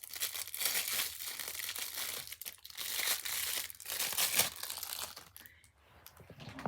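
Dense, scratchy rustling and crinkling close to the microphone, in quick uneven strokes, dying away about five and a half seconds in.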